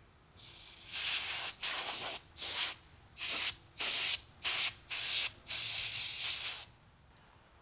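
Airbrush spraying paint in a series of short hissing bursts, about nine in all, the last one longer, to touch up the colour on a freeze-dried cat's nose.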